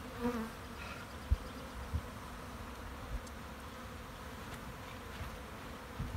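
Honey bees from a freshly opened package buzzing in the air, a steady hum with a bee passing close just after the start. A few dull low thumps cut through it, the loudest a little over a second in.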